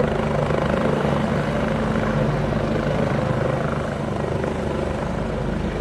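A Black Hawk helicopter's rotors and turbine engines running in a steady drone, growing a little fainter in the last two seconds.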